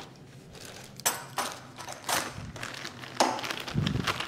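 Handling of a small plastic bag of projector-mount screws and parts: a few light clicks and taps with soft rustling, and a dull thump near the end.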